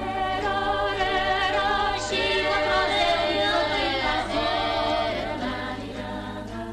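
A choir of voices singing a melody with vibrato over the film's music, swelling in at the start and fading away near the end. A steady low hum runs underneath.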